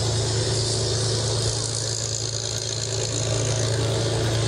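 Steady drone of aircraft engines in a formation flypast: an F-35A's jet engine together with two piston-engined propeller fighters, a constant low hum under an even jet hiss.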